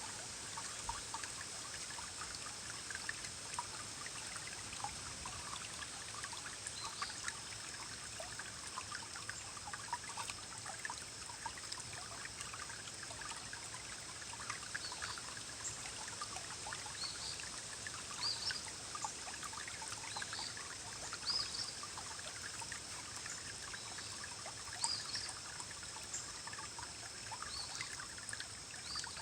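Small forest stream churning and rippling, a steady wash of running water with many small bubbling plinks and gurgles scattered through it.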